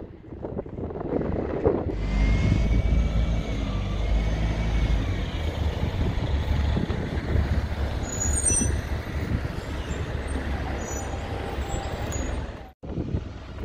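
Diesel bus engine running close by, with a few short high-pitched brake squeals about eight to nine seconds in.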